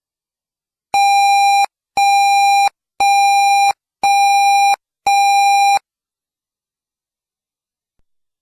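Five evenly spaced electronic alert beeps, about one a second, each a steady buzzy tone lasting under a second. They are the lead-in of an Emergency Alert System broadcast warning.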